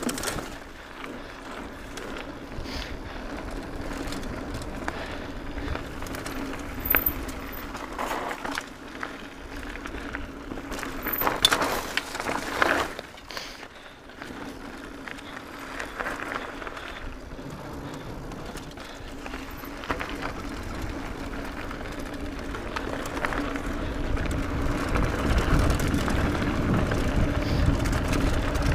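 Mountain bike rolling fast down a dirt trail: tyres running over the ground and the bike rattling, with a cluster of sharp knocks from bumps about halfway through. A low wind rumble on the microphone grows louder near the end as the rider picks up speed on a wider dirt road.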